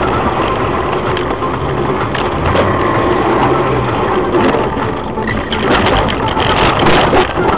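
Car running off a snowy road into a field, heard from inside the cabin: a steady rumble of tyres and engine, then a run of crunching knocks and jolts as it ploughs through snow and rough ground, loudest about six to seven seconds in.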